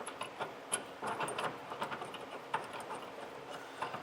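Light metallic clinks and rattles of steel bolt hardware, a spacer block and flange nut, being handled and fitted onto a bolt by hand. The clicks are short and come at irregular intervals.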